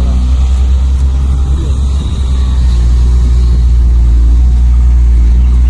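Truck engine running steadily with a deep hum, getting a little louder about halfway through.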